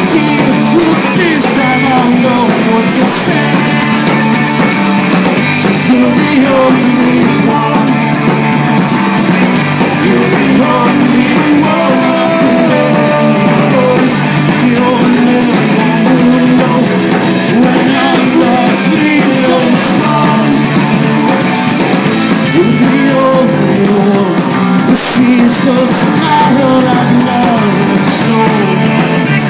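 Rock band playing live, with electric guitars and singing, loud and unbroken.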